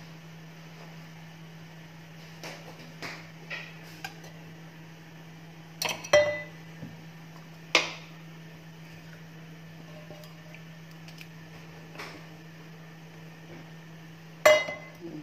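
Kitchen utensils knocking and clinking against a metal baking pan and the counter: scattered sharp clinks, the loudest about six seconds in and again near the end with a brief metallic ring. A steady low hum runs underneath.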